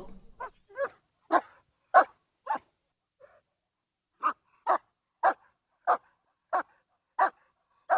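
A dog barking in short, sharp single barks, spaced a little over half a second apart: five barks, a pause of nearly two seconds, then seven more.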